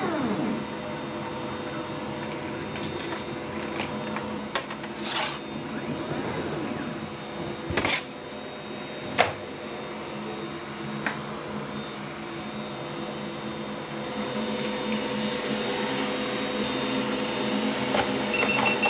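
WOXCKER L8 20 W diode laser cutter running a cutting job on cardboard. Its air-assist pump hums steadily, and the stepper motors whine in rising and falling glides as the laser head travels. There are a few short sharp sounds around the middle.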